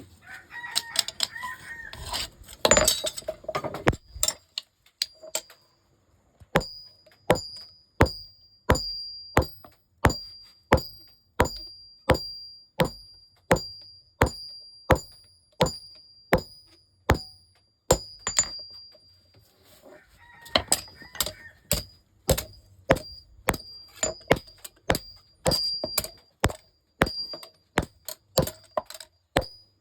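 Steady hand-hammer blows on steel, each strike ringing briefly, about one and a half a second, while the tip of a machete blade is cut off. There is a brief pause a little past the middle before the hammering resumes.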